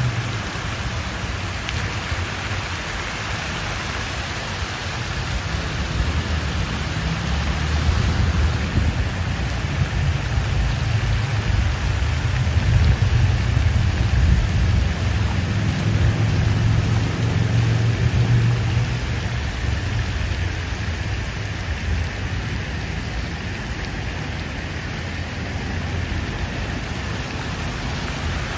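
Fountain water splashing steadily from the pool's jets and spilling over the basin edge, with a low rumble underneath that swells through the middle and eases off near the end.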